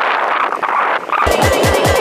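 Electronic background music cuts in about a second in: fast, evenly repeated bass hits that each drop in pitch, over a steady high tone. Before it there is only a noisy outdoor hiss.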